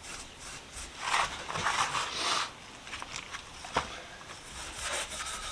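Steel wool scrubbing over paint stripper residue on a metal pipe wrench, in a few irregular rubbing strokes, with a single sharp click about two-thirds of the way in.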